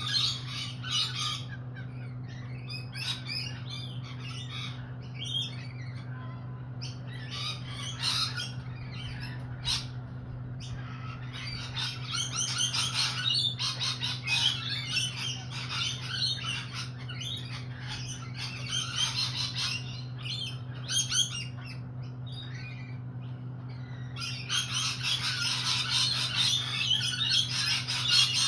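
A flock of lorikeets chattering and calling in a dense, continuous stream of high calls. It grows busier about halfway through and again near the end.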